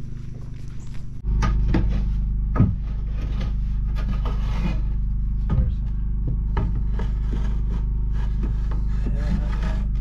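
Lumber being handled and worked: irregular knocks of wood on wood with some scraping and rubbing, over a steady low hum that grows louder about a second in.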